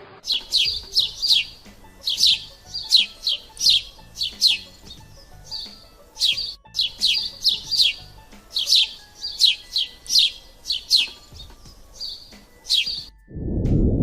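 Bird chirping: many short, high, downward-sliding chirps in quick clusters. A loud low rushing noise cuts in suddenly near the end.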